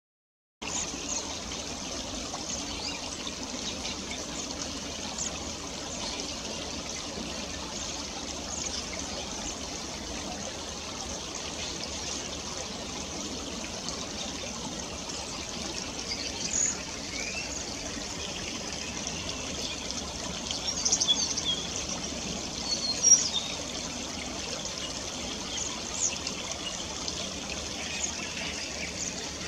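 Shallow stream trickling steadily over rocks, with a few short, high bird calls; the loudest calls come about two-thirds of the way through.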